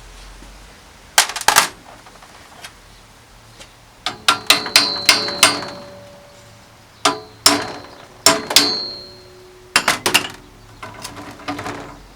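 Sharp metallic taps and clinks of steel tools on a vintage bicycle's cottered crank and its cotter pin, coming in quick clusters of several hits, some leaving a brief high ring.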